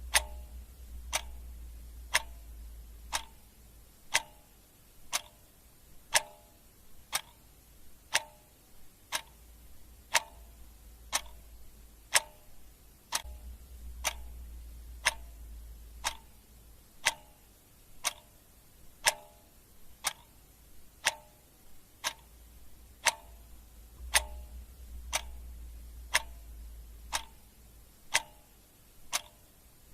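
Mechanical clock ticking steadily at about two ticks a second, alternating a thin tick with a fuller tock.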